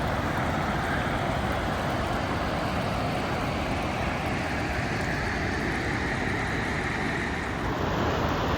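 Mountain stream rushing down through rocks: a steady rushing of water.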